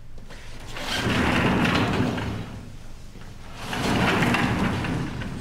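Wooden-framed glass sliding door rolling along its track twice, each run lasting about a second and a half.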